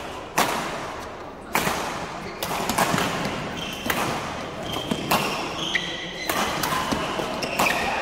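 Badminton rally: rackets hit the shuttlecock sharply every second or so, several times, and the hits ring in the hall. Sports shoes squeak briefly on the court mat in the middle of the rally.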